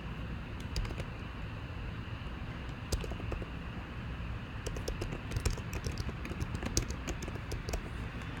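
Typing on a computer keyboard: irregular runs of key clicks with short pauses between them, over steady background noise.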